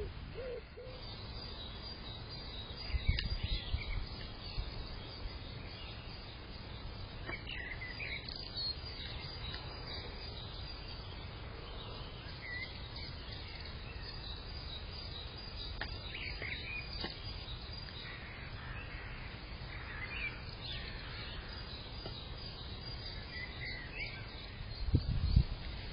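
Small birds chirping now and then over a steady background hiss, with a couple of low thumps, about three seconds in and near the end.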